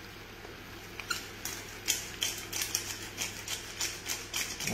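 Hand pepper mill grinding over a frying pan: a run of short, dry, crunchy clicks, about three or four a second, starting about a second in, over a low steady hum.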